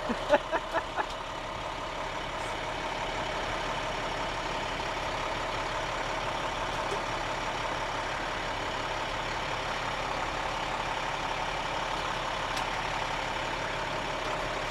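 Sewer vacuum truck's engine idling steadily. A few short sharp clanks in the first second as the metal suction tube sections are fitted.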